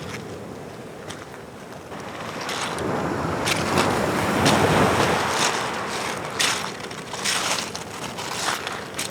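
An ocean wave breaking and washing up the shore, building to a peak about halfway through and then easing off. In the second half, footsteps crunch on the beach at a walking pace.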